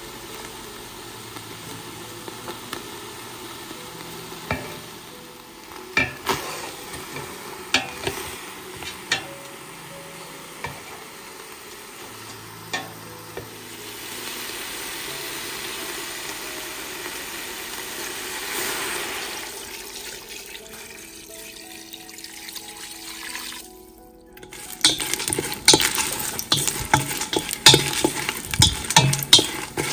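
Duck meat and pounded herb paste sizzling in a pot as it is stirred with a wooden spoon, with occasional knocks of the spoon against the pot. After a short break near the end, a louder quick run of clicks and scrapes as dried red chilies are stirred in a stainless-steel pot.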